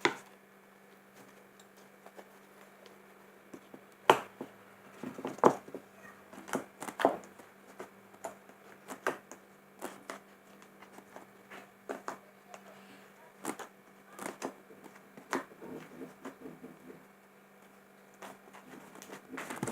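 Scattered, irregular sharp clicks and taps of a plastic food storage container and its lid being handled while slime is put away, over a faint steady hum.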